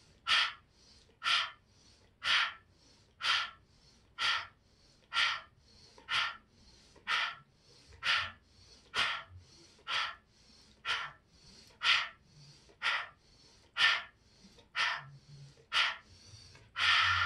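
A woman's quick, forceful breaths in a steady rhythm, about one a second, as a paced kundalini yoga breathing exercise.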